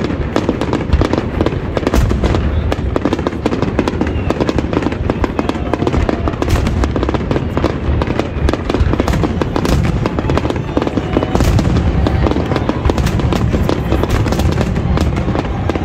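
Fireworks display: a dense, continuous barrage of shell bursts and crackling, many bangs a second over a steady low rumble.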